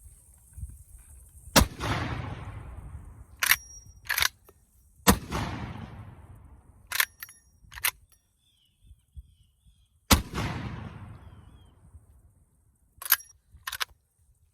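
Original Winchester Model 1887 lever-action 12-gauge shotgun firing black-powder brass shells: three shots, each followed by a long rolling echo. After each shot the lever is worked to chamber the next shell, heard as two sharp clacks.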